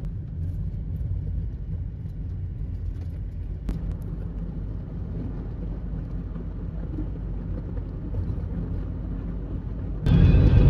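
Steady low rumble of a car's tyres and engine heard from inside the cabin while driving, with a faint click near the start and another about four seconds in. Just before the end, loud music cuts in suddenly.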